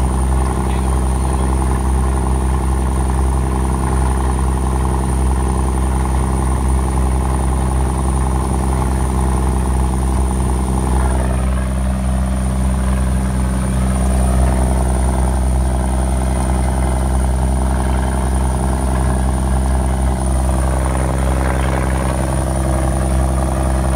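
M35A2 deuce-and-a-half's multifuel six-cylinder diesel running steadily under load while the truck pushes through deep floodwater, heard from inside the cab. The engine note shifts about halfway through and again near the end.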